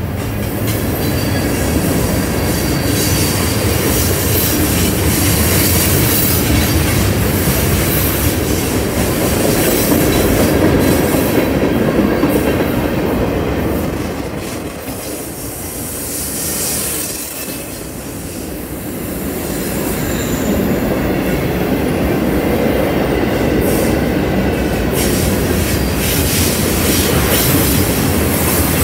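Freight cars of a mixed freight train rolling past close by: the steady rumble and clatter of steel wheels on the rails, easing briefly about halfway through before building again.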